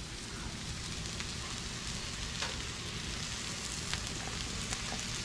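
Redfish fillets frying in bacon grease on a hot Blackstone griddle: a steady sizzling hiss with occasional small pops of spattering fat.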